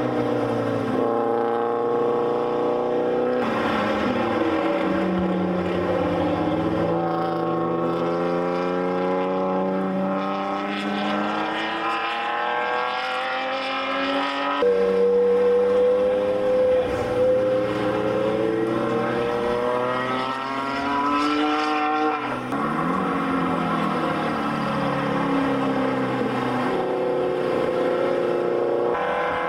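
Track cars' engines under hard acceleration on a road course, among them a Mazda RX-7 and a Honda S2000. The engine note climbs slowly in pitch for several seconds, then drops sharply at a gear change or as the next car takes over. This happens three times.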